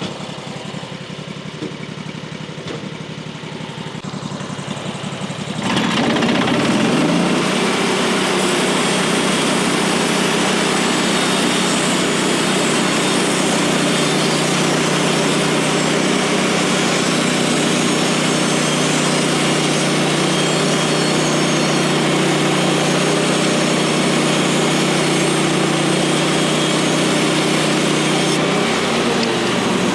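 Gas engine of a Woodland Mills HM136MAX portable bandsaw mill idling, then throttling up about six seconds in to a steady full-speed run that drives the band blade, and dropping back toward idle near the end.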